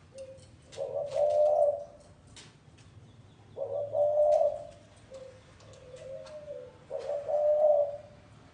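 Spotted dove cooing: three loud, low coo phrases about three seconds apart, with softer short coos between them and faint scattered clicks.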